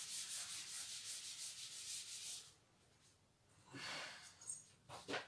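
Chalk being wiped off a blackboard with a cloth in rapid back-and-forth scrubbing strokes, stopping about two and a half seconds in; a few faint short sounds follow near the end.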